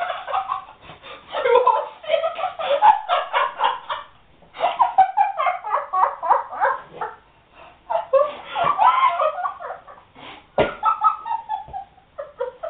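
People laughing hard in several long bouts with short breaks between them, with a single sharp knock about ten and a half seconds in.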